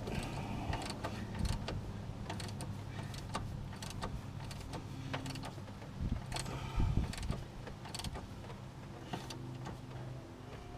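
Irregular clicks and metal knocks of a ratchet tightening the bolt of a new engine pulley, over a faint steady low hum.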